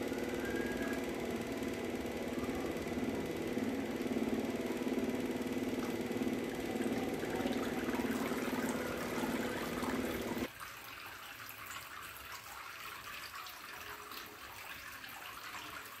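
Small tabletop fountain running: water trickling and splashing, over a steady hum from its 3 V submersible mini pump. The sound drops quieter about ten seconds in.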